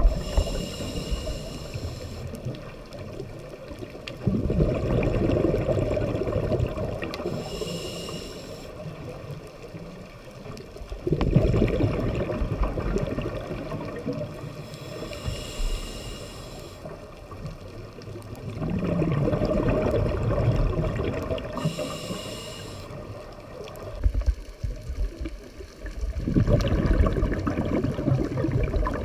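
Scuba diver breathing through a regulator underwater: a short high hiss on each inhale, then a longer, louder burst of exhaled bubbles. About four breaths, one every seven seconds or so.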